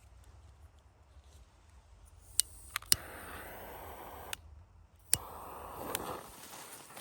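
A firecracker fuse being lit: a few sharp clicks, then the fuse hissing steadily until it cuts off abruptly. A click and a second, shorter stretch of hissing follow.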